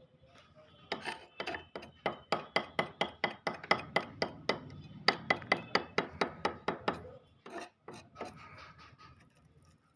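Wood being rubbed down by hand in quick, even strokes, about three a second, as old wood is worked back for restoration. The strokes start about a second in and stop about seven seconds in, with a few scattered strokes after.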